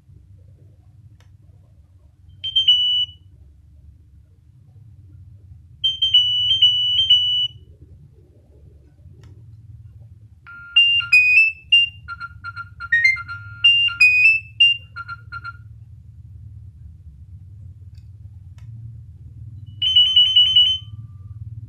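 Nokia 6100 mobile phone playing ringtones: four short bursts of electronic beeping notes with pauses between. The longest is a tune of a few seconds in the middle, and the last is a quick run of repeated notes. A low steady hum runs underneath.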